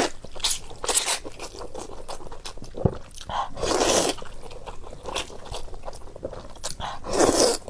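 A person eating wide noodles from a spicy broth: three long, loud slurps, about a second in, around four seconds and near the end, with wet chewing and lip smacks in between.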